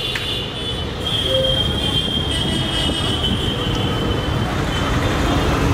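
Steady rumble of busy street traffic, with a thin high squeal running through it that fades out after the first few seconds.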